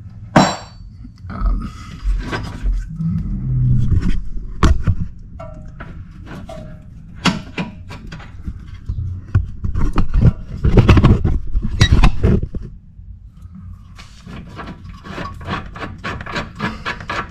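Hand tools working bolts on a car's rear suspension: metal knocks, clanks and scrapes, with a ratchet wrench clicking rapidly near the end.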